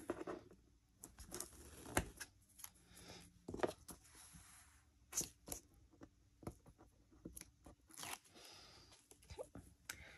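Double-sided adhesive tape being pulled off its roll, torn and pressed onto cardstock by hand: on-and-off rustling and crinkling with scattered light taps.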